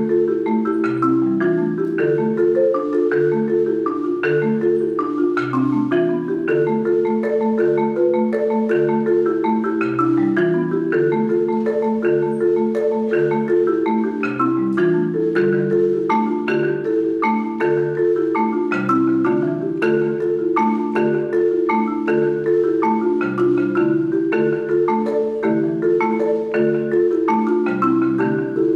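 Four-mallet marimba solo: a steady, repeating pattern of low bass notes under sustained chords in the middle register, playing without a break.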